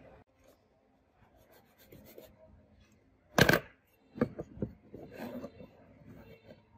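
Handling noise on a wooden workbench: one loud knock about three and a half seconds in, two lighter knocks just after, then light scraping and rubbing as a warped metal phone frame is moved about.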